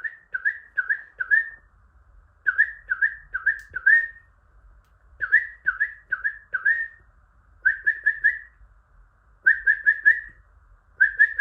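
A person whistling to a cockatiel: short notes that each swoop upward, in quick runs of three or four, repeated about every two to three seconds.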